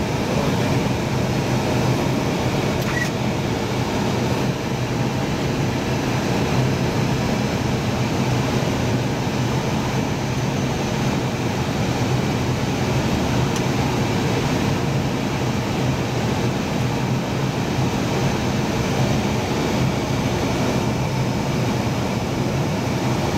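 Steady flight-deck noise of an Airbus A320 on final approach: an even rush of airflow and cockpit ventilation over a constant low hum.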